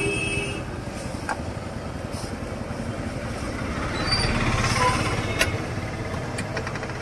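Steady low rumble of a stall's gas burner under a wok of Manchurian gravy boiling hard, mixed with road traffic, getting louder around the middle. A vehicle horn sounds briefly at the very start.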